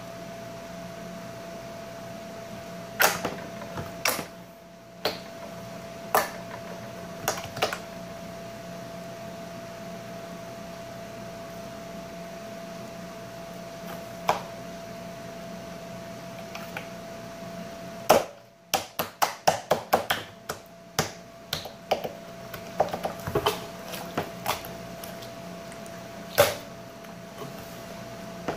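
Slime being stretched, folded and pressed by hand on a tabletop, giving sharp pops and clicks from trapped air. A few spaced pops come first, then a quick run of pops for several seconds past the middle, over a steady faint hum.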